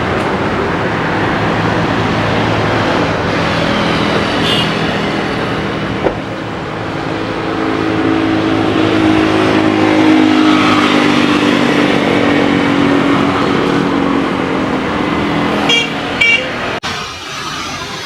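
Road traffic noise, with a passing engine whose tone falls slowly in pitch, then two short horn toots near the end; the sound cuts off abruptly just after.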